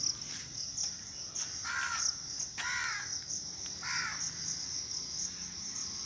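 A crow cawing three times, short harsh calls about a second apart, over a steady high-pitched insect chirring.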